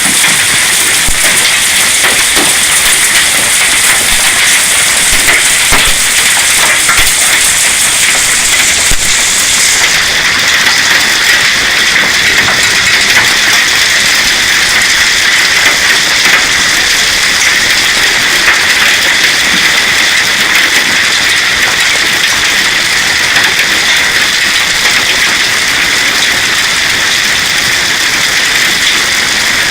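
Hail and heavy rain pounding down in a steady loud rush, dense with small impacts of hailstones striking surfaces. About ten seconds in, the highest hiss drops away while the downpour keeps on.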